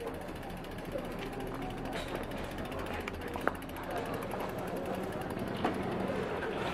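Bicycle freewheel hub ticking steadily as the bike is wheeled along, with a steady low hum underneath and a few sharp clicks, one about three and a half seconds in.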